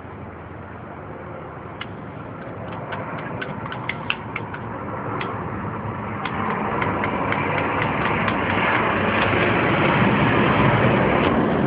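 Nissan L20B four-cylinder engine running, with sharp, evenly spaced ticks about five a second over it, and the engine getting louder from about six seconds in. The ticking is taken for a bad timing chain tensioner.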